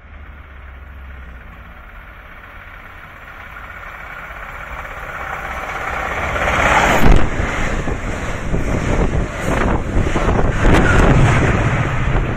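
A MARC express train approaching at high speed and passing close by: a steadily rising rumble that peaks sharply about seven seconds in, then a loud, continuous rush of the train going by.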